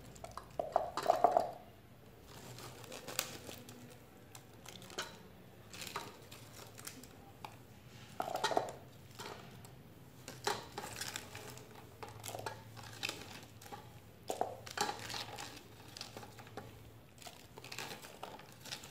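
Handfuls of small red sâm đại hành bulbs (Eleutherine bulbosa) scooped in a plastic colander and dropped into an aluminium pot of fish, making irregular rustling and light clattering with a few louder bursts.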